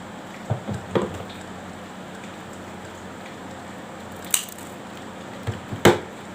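A few sharp snips and clicks, the loudest near the end, as the untwisted wires of a twisted-pair network cable are trimmed to length with a cutter for an RJ45 connector.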